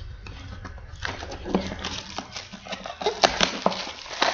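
Trading card packs and boxes being handled: a quick run of clicks and crinkles, busier from about a second in.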